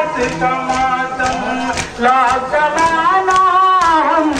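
Men chanting a nauha, a Muharram lament, in unison, with rhythmic slaps of hands beating on chests (matam) about twice a second.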